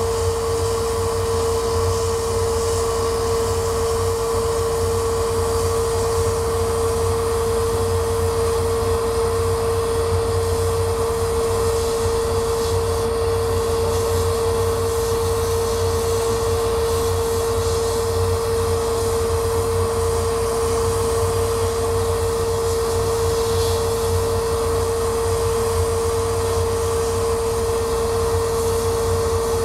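Laser cutter running while it cuts a wooden sheet: a steady, fan-like machine hum with a constant mid-pitched whine over a low rumble.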